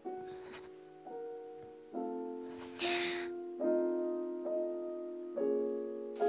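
Slow solo piano music from a film score: sustained chords struck about once a second, each ringing and fading, growing gradually louder.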